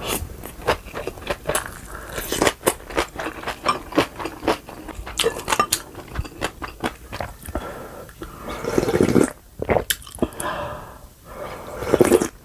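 Close-miked eating of kimchi, rice and ramyeon: a fast run of crisp chewing and crunching clicks with wet mouth noises. There are longer, louder wet stretches about nine seconds in and again near the end.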